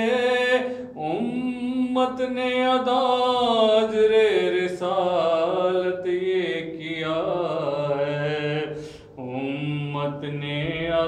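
A solo voice chanting an unaccompanied devotional recitation in long, drawn-out phrases that waver slowly in pitch, with two brief breaks for breath.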